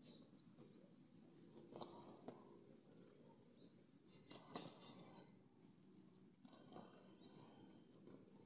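Faint high chirp, most likely an insect's, repeating evenly about every two-thirds of a second over low outdoor ambience, with a few soft knocks, the loudest about four and a half seconds in.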